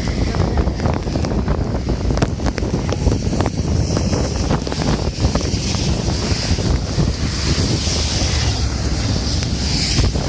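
Wind buffeting the microphone in a rainstorm, a heavy uneven rumble, with a steady hiss of rain and scattered sharp ticks of drops striking close by.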